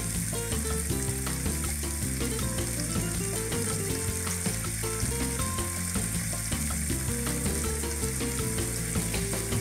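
Chopped onions, Roma tomatoes and garlic sautéing in oil in a frying pan, sizzling steadily. Background music with a low bass line of changing notes plays underneath.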